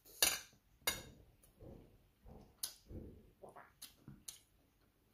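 Metal spoon and fork clinking and scraping on a ceramic plate while eating, with about five sharp clinks and softer chewing sounds between them.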